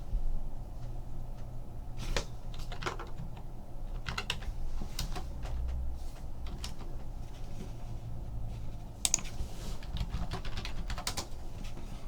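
Typing on a computer keyboard: irregular key clicks, some in quick runs, with short pauses, over a steady low hum.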